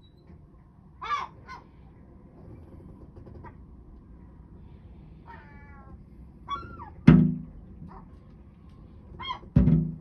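A herring gull gives short calls now and then, and twice, about seven and nine and a half seconds in, strikes the glass door hard with its beak, two loud bangs.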